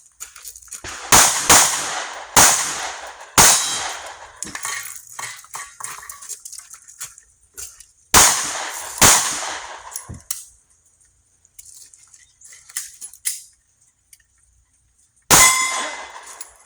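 Backup pistol fired at close range in three strings: four shots in about two and a half seconds, a pause of several seconds, two more shots a second apart, then one more shot near the end.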